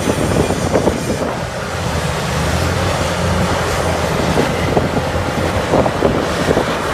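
Caterpillar 6015B hydraulic mining excavator's diesel engine running steadily with a low hum while its bucket digs dirt and rock, with a few scattered knocks.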